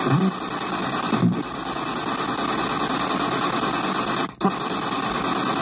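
Spirit box (ghost box) radio sweeping through stations and playing through a small portable speaker: steady loud static with brief snatches of broadcast sound near the start and a short sudden dropout about four seconds in.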